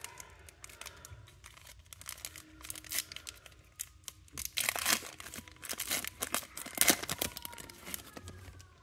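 The foil wrapper of a Panini Select basketball card pack being peeled and torn open by hand: irregular crinkling and tearing crackles, loudest about halfway through and again near the seven-second mark.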